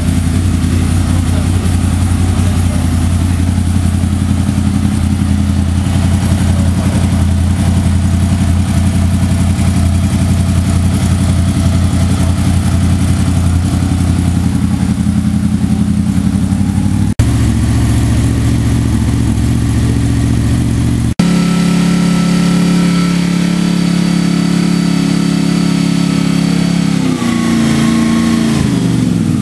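Honda VFR motorcycle's V4 engine running steadily, then at higher revs for several seconds before the revs drop back near the end. The owner flags the engine sound as an abnormal noise.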